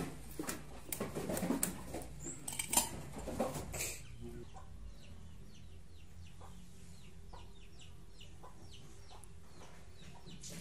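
Knocks and rustling against a plastic child's chair as a baby monkey clambers down off it, then, from about four seconds in, a run of faint, short, falling bird chirps.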